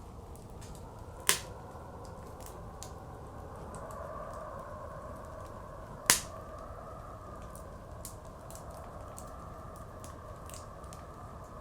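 Wood fire crackling, with two loud pops, one about a second in and one about six seconds in, over a steady blizzard wind whose pitch slowly wavers.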